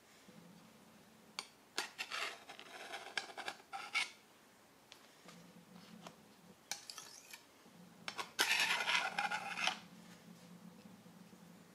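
A flat metal spatula scraping across the rims of stainless steel mousse rings, levelling cream cheese mousse. It comes in three bouts of scraping with sharp clicks of metal on metal, the longest and loudest near the end.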